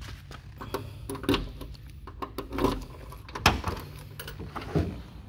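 A few short clicks and knocks, the sharpest about three and a half seconds in, over a low steady hum.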